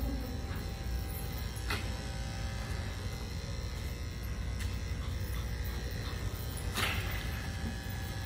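Electric pet grooming clippers running with a steady buzz, with two brief clicks, one near two seconds in and one near the end.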